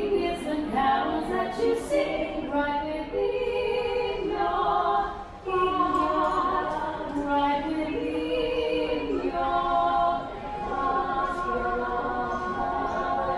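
A choir singing unaccompanied, several voices holding long notes, with a brief pause about five seconds in.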